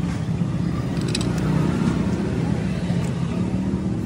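Steady low engine hum from a motor vehicle running nearby, with a few short clicks over it.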